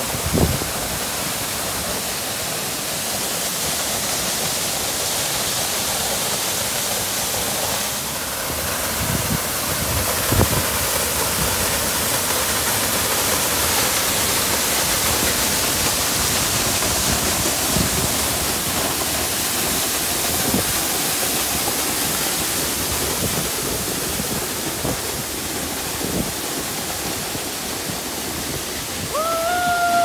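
Waterfall rushing steadily, water falling down a rock face and splashing onto the rocks below. Near the end a held whistle-like tone starts, rising briefly and then holding level.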